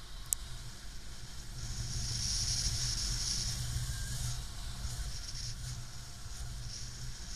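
Airflow buffeting the camera microphone during paraglider flight: a steady low rumble with a high hiss that swells for a couple of seconds mid-way, and one sharp click just after the start.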